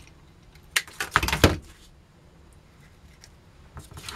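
Cutting pliers snipping sticks of black match to length: a single sharp click, then a quick cluster of snips and clicks about a second in, followed by a few faint ticks of handling.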